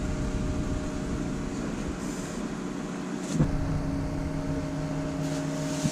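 A steady mechanical hum with a single knock about three and a half seconds in. After the knock the hum carries a few steady pitched tones.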